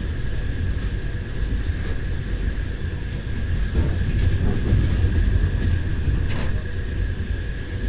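Passenger train rolling along the track: a steady low rumble with a thin constant whine, broken by scattered sharp knocks of the wheels clattering over the rails.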